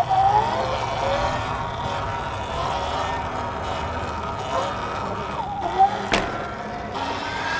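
Sur Ron electric dirt bike's motor whining, its pitch gliding up and down with the throttle, over steady wind and road noise. A sharp click comes about six seconds in.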